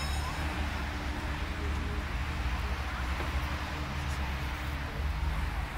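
Outdoor background noise: a steady low rumble with faint distant voices.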